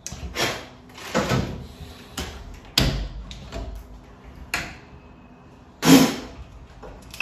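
Quick-release bar clamps being released and a plywood router template lifted off a wardrobe door: a string of clicks, clatters and knocks about once a second, with a heavier thud about six seconds in.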